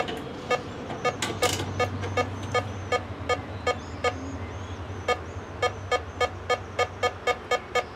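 Satellite finder meter beeping in short, even pulses: about three a second at first, quickening to about five a second a little past halfway. The quicker beeping signals that the dish is being turned onto a stronger satellite signal. A faint low drone runs beneath.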